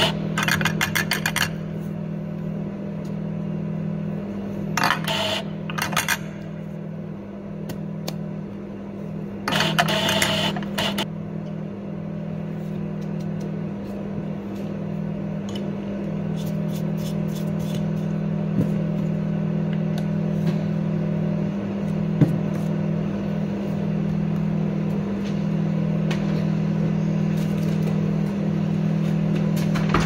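A steady low machine hum at an espresso counter, with two brief noisy bursts about five and ten seconds in and a single sharp click later on, as the portafilter and coffee gear are handled.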